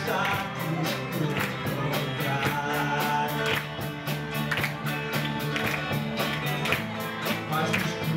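Live rock band playing electric guitars, bass guitar and a drum kit, the drums keeping a steady fast beat.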